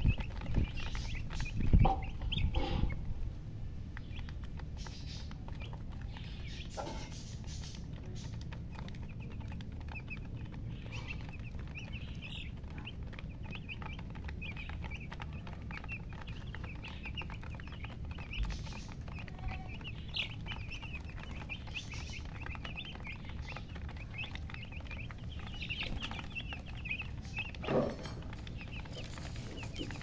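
A flock of young chicks peeping, with many short high chirps overlapping all the way through. A few louder low thumps and rumbles come in the first three seconds, and again briefly near the end.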